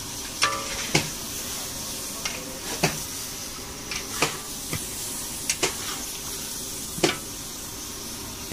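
A long metal ladle stirring food in a large iron kadai over a wood fire. The food sizzles and hisses steadily, and the ladle strikes the pan in about ten sharp clanks at uneven intervals.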